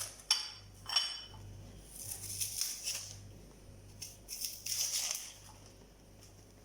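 Dry onion skin crackling and rustling as a raw onion is peeled. It comes in several short spells, with two sharp clicks in the first second.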